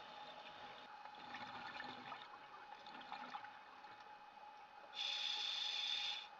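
Underwater sound picked up through a diver's camera housing: a steady low hiss with a faint hum and scattered light crackles, then about five seconds in a louder rush of water noise that cuts off suddenly.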